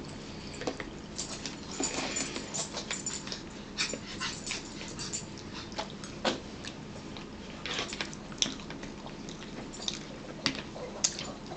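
Eating sounds at a table: chewing and mouth smacks with irregular clicks of a metal fork in a plastic bowl.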